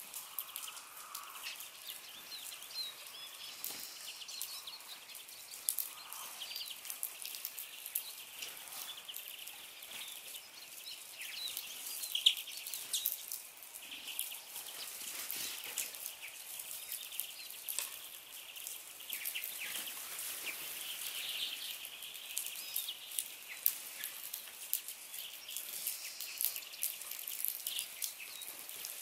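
A flock of small finches at a seed feeder calling, with many short high chirps and ticks overlapping throughout.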